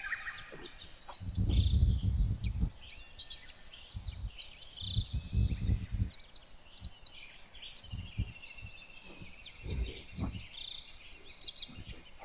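Several birds chirping and trilling in short high calls throughout, over bursts of low rumbling on the microphone, the loudest about two seconds in.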